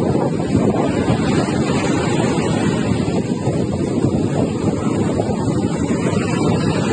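Wind buffeting the microphone on a seashore: a steady, dense rumble with no break.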